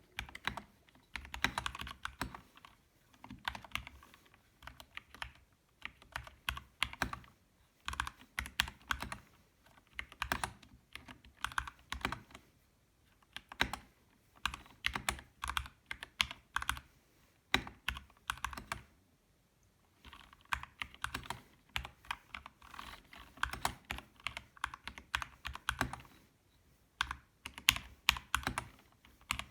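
Typing on a Kemove DK61 Snowfox 60% mechanical keyboard with linear Gateron Red switches and stock stabilisers: quick runs of keystrokes in bursts of a few seconds, with brief pauses between them.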